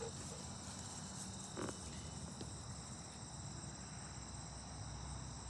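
Steady high-pitched insect chorus from the meadow, several thin unbroken tones layered together, over a faint low rumble.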